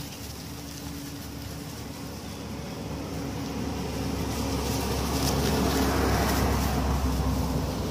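Low rumbling background noise with a faint steady hum, swelling to its loudest about six seconds in and easing slightly near the end.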